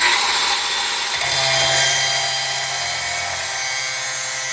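Electric angle grinder with its abrasive wheel working metal: a loud, steady, hissing whine that starts suddenly.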